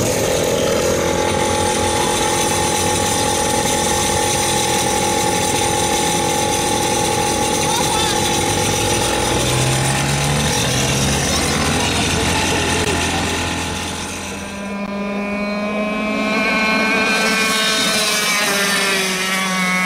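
Two-stroke go-kart engine running steadily at high revs. About three-quarters of the way through the sound dips briefly, then comes back with a wavering pitch.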